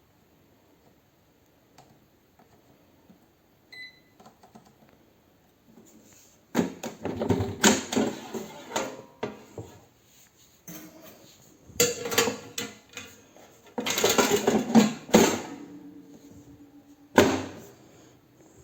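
A short electronic appliance beep about four seconds in, then several bursts of clattering and rustling handling noise, the loudest near the middle and one sharp clatter near the end.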